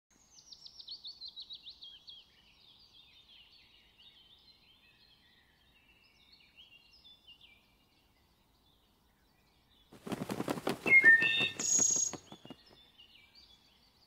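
Bird song: a fast run of descending whistled notes, then softer twittering. About ten seconds in, a loud rapid rattle with a few squeaky chirps lasts a couple of seconds, then faint chirps again.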